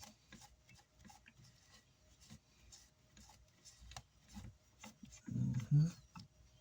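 Cloth rubbing and wiping old heat-sink compound off amplifier parts, in faint irregular strokes. A short hum-like voice sound is heard a little past five seconds in.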